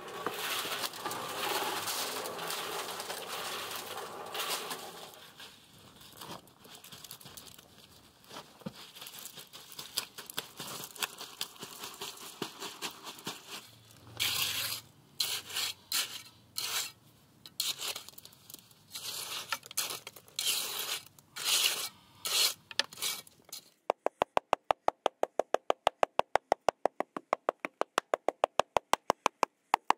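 A trowel scraping and rasping against a rough stone wall and loose gravel in short, irregular strokes. In the last several seconds there is a rapid, very even tapping.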